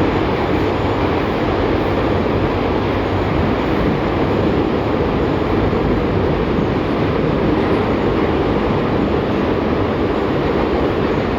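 LVS-2009 tram running along the track, a steady rumble of wheels on rail and running gear heard from inside the car.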